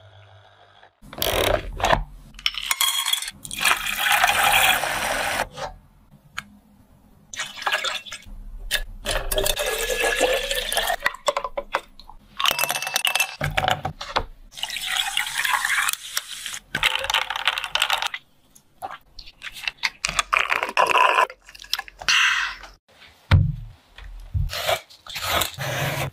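Lemon juice and drink being poured and splashing into glass, with ice cubes clinking against the glass. A few sharp knocks of a knife near the end.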